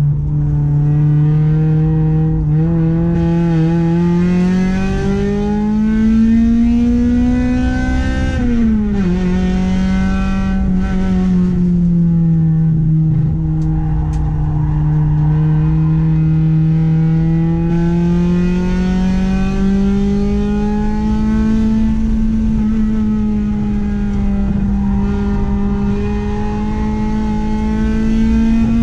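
Honda Accord's H22A 2.2-litre four-cylinder engine running hard at high revs. Its pitch climbs steadily for about eight seconds, drops sharply with an upshift, then holds and rises and eases gently with the throttle.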